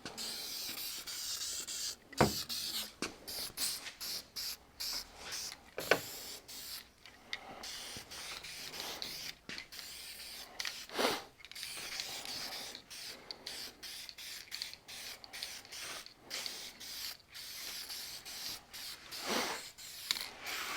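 Masking tape being pulled off the roll, torn and pressed down, in a run of short rips and rustles with a few sharp taps.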